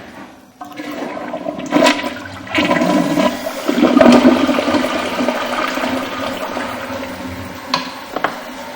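Toilet flushing: a rush of swirling, draining water that builds over the first few seconds, then eases off into steady running water. A couple of light knocks come near the end.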